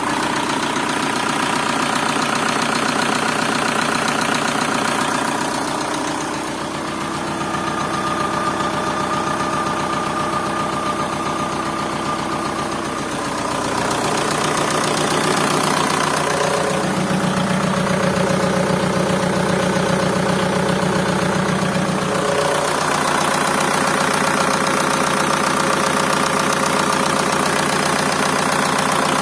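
An engine running with a fast, regular knocking whose source the owner cannot locate. The engine speed shifts a few times, with a stronger low hum from about sixteen to twenty-two seconds in.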